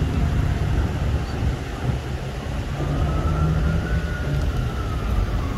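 A fire engine's siren wailing, its pitch sliding down, then slowly up to a peak about four seconds in and down again, over a steady rumble of road traffic.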